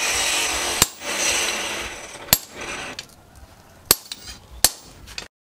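Hammer blows on a red-hot leaf-spring axe head held in tongs on a steel post anvil: four sharp, unevenly spaced strikes. A steady hiss runs under the first two seconds, and the sound cuts off suddenly just before the end.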